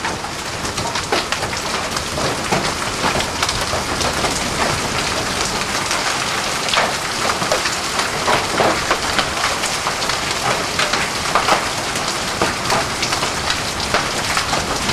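Heavy rain mixed with hail: a steady hiss of rain with many sharp clicks and taps of hailstones striking the ground and nearby surfaces.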